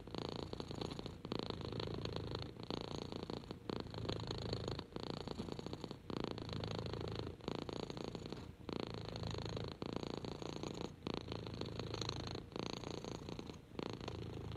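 Orange-and-white kitten purring steadily while being stroked, a sign of contentment. The purr breaks briefly about every second and a quarter.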